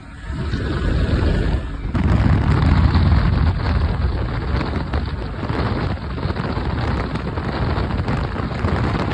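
Boat running at speed on open water: dense rushing wind and water noise with heavy wind buffeting on the microphone, briefly broken right at the start and again about two seconds in.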